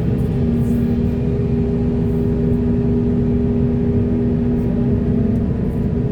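Heavy diesel construction machinery running steadily: a low engine rumble with a constant hum over it.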